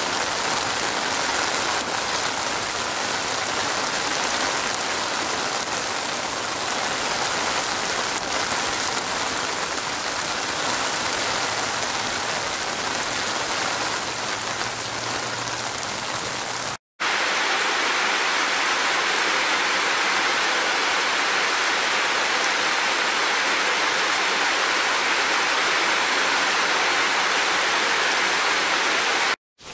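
Steady rain falling, an even hiss of many drops. About 17 seconds in it cuts out for a moment and resumes as a brighter, slightly louder downpour, then cuts out again just before the end.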